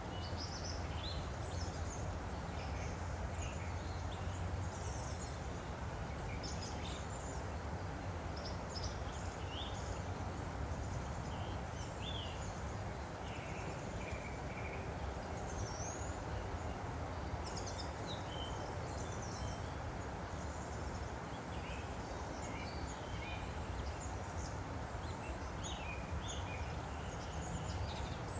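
A woodland stream flowing with a steady rush of water, with songbirds chirping and trilling in short phrases throughout.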